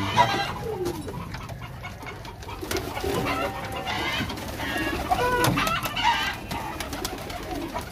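A flock of domestic pigeons cooing in a loft, with chickens clucking among them; several short calls overlap.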